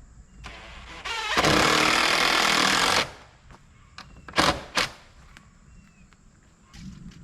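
A power tool runs loudly for about two seconds, then gives two short bursts about half a second apart.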